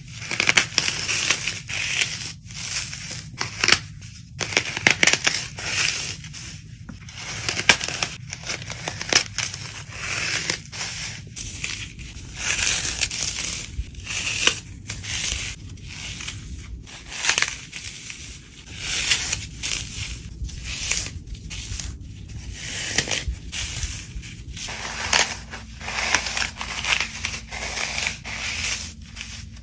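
Dry floral foam blocks crushed and crumbled by hand: crisp crunching and crackling that comes in irregular squeezes, with short pauses between them.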